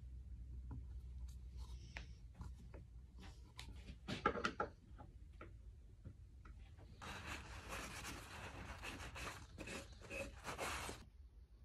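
Hand screwdriver driving screws through a cast-iron coat hook into a wooden board, with small scattered clicks and a louder burst of them about four seconds in. From about seven seconds a cloth rubs briskly over the wood for some four seconds and then stops. A low steady hum runs underneath.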